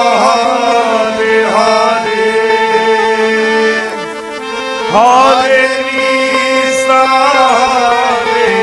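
Hari kirtan devotional singing: men's voices singing long, sliding phrases over a steady harmonium.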